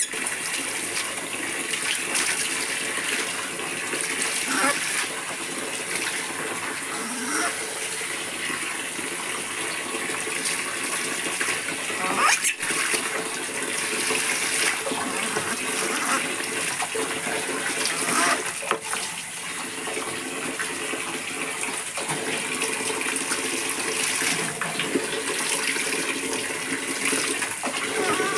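Water poured from a plastic dipper over a small animal, splashing steadily onto a wet concrete floor.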